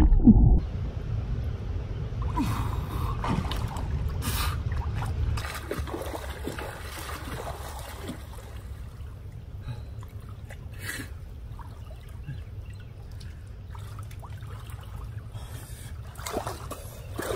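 A person swimming and then wading through deep water: scattered splashes and sloshing over a steady low rumble. At the very start, a brief muffled underwater noise.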